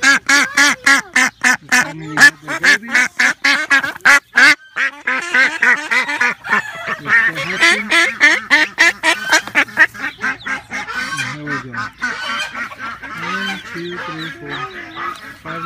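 White domestic duck quacking fast and repeatedly, several calls a second, getting more crowded and overlapping after the first few seconds.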